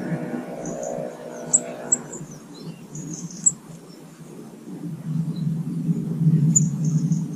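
Small garden birds giving a few short, high-pitched chirps, over a low engine rumble from passing traffic that grows louder in the second half.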